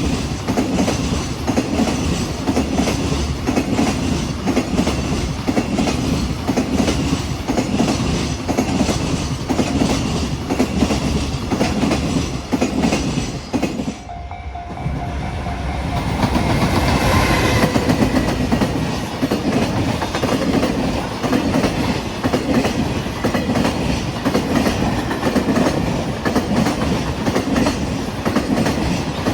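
A freight train's wagons rolling past close by, their wheels clattering steadily over the rail joints. The sound dips briefly about halfway, then carries on.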